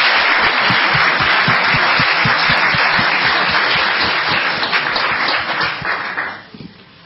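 Audience applauding, many hands clapping together; the clapping dies away about six seconds in.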